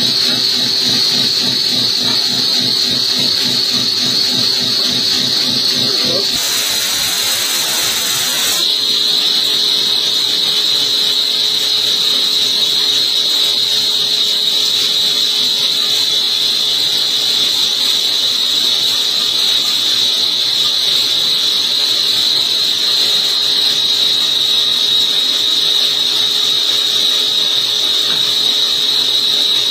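CNC vertical turning lathe cutting a landing gear part: a steady high-pitched cutting tone over a lower machine hum. A hissing burst starts about six seconds in and lasts about two seconds.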